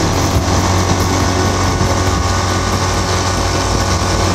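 Outboard motor running steadily at speed, driving an aluminium fishing boat, with a constant rush of wind and water.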